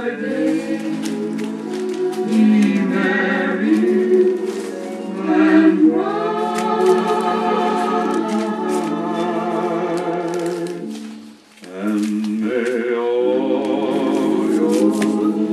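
Choir singing, sustained chords with a wavering vibrato, broken by a short pause about eleven seconds in, with scattered light clicks.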